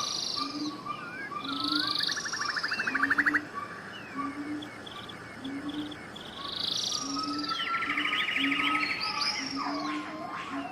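Forest ambience of several birds calling together: fast trills, sweeping whistles and short chirps overlap, over a short low note repeated about once a second.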